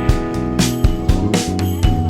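Background music with a steady drum beat and sustained instrumental chords.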